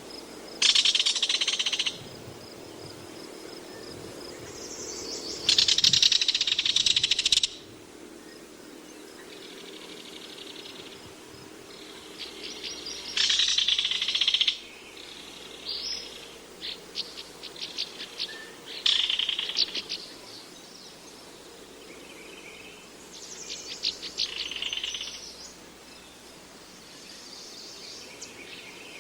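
Bird song: repeated bursts of rapid, high-pitched trills, each a second or two long, with a run of separate short chirps in the middle, over a steady low background hum.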